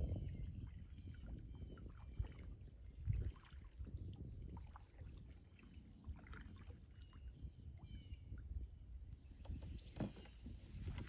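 Small plastic kids' kayak on a pond: faint knocks and water movement around the hull, with a couple of soft thumps, one about three seconds in and one near the end, and wind rumbling on the microphone.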